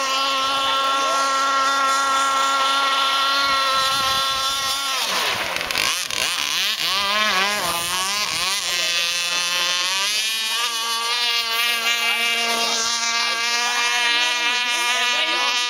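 Radio-controlled model speedboat running fast across open water: a steady high motor note with many overtones. About five seconds in the note wavers and bends for a few seconds, drops lower, then climbs back to a steady pitch about ten seconds in.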